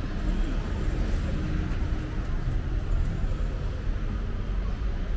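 Busy city street ambience: steady traffic noise with a low rumble.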